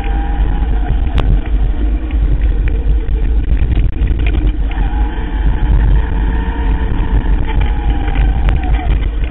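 Electric mountain bike ridden fast down a dirt trail: heavy wind buffeting and trail rumble on the camera's microphone, with the electric drive's whine rising and falling in pitch. Two sharp knocks, about a second in and near the end, as the bike rattles over bumps.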